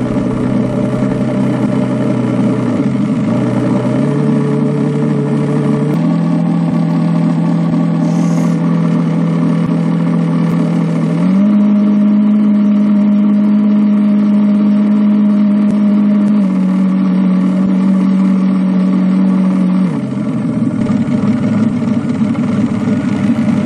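Drive motor of a radio-controlled model ship running under way with a steady hum, its pitch stepping up several times over the first ten seconds or so and then stepping down twice near the end as the throttle is changed.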